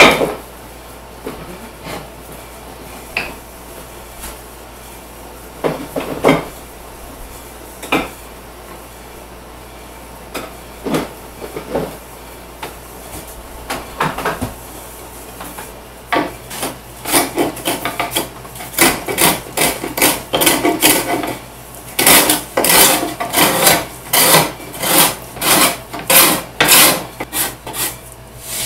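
Steel cabinet scraper scraping glued-in marquetry pieces down flush with a wooden panel, in quick repeated strokes of about two to three a second that start past the halfway point and grow denser. Before that there are a few scattered knocks.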